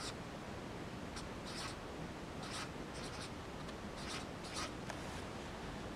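Red felt-tip marker writing figures on a white board: a series of short, faint scratchy strokes with brief pauses between them.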